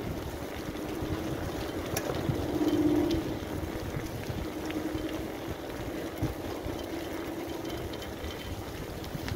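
Wind rushing over the microphone and the rumble of bicycle tyres rolling over a block-paved path, with a steady hum that swells briefly about three seconds in and a few light ticks and rattles.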